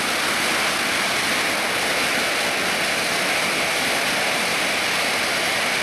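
A C-17 Globemaster III's four turbofan engines running on the runway after landing, a loud, steady jet rush.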